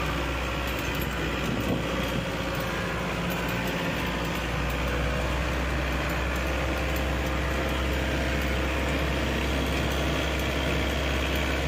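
Bus engine running steadily as the bus drives, heard from inside the cab: a constant low drone mixed with road noise.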